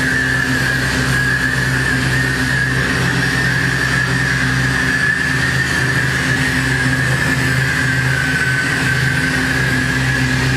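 Steady, loud drone from a performance sound score, engine-like: a low hum with a high whining tone held above it that dips slightly in pitch late on.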